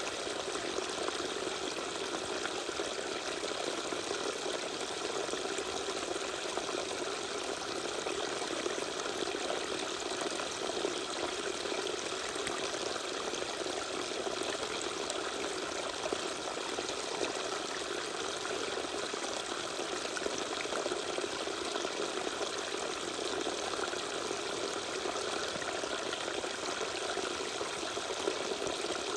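Small waterfall: water pouring and splashing in a steady, unchanging rush.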